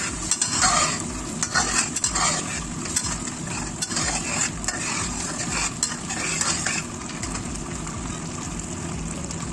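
Metal spatula stirring and scraping thick chili sambal in a wok as it simmers and sizzles, cooking down. The scraping strokes thin out near the end, leaving the steady sizzle and bubbling of the sauce.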